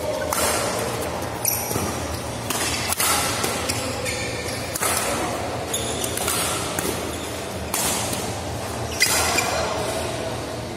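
Badminton doubles rally: rackets striking the shuttlecock in a run of sharp hits, about one every one to two seconds, with shoes squeaking on the court floor, echoing in a large indoor hall.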